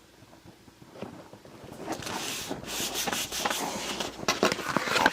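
Cardstock and paper being handled and rubbed against each other and the work surface. The rustling starts about two seconds in and grows louder, with small scrapes and taps.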